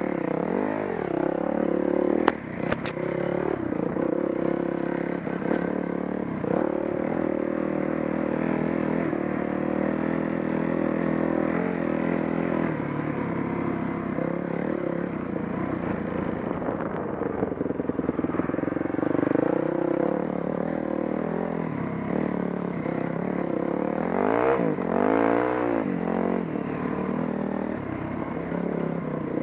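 Dirt bike engine running and revving up and down as the bike rides a bumpy dirt trail, with clattering and scraping from the bike. There are a few sharp clicks a couple of seconds in, and a quick rise and fall in revs near the end.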